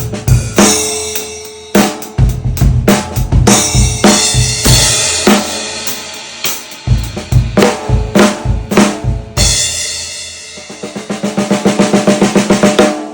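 A 14x8 maple/mahogany stave snare drum with a coated Ambassador head, at medium tuning, played in a groove with bass drum and a cymbal wash. From about ten seconds in, a fast even roll on the snare grows louder.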